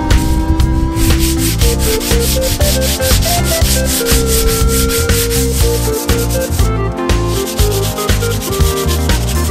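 Hand sanding of a carved London plane chair seat with a sanding sponge: repeated rubbing strokes across the wood, over background music.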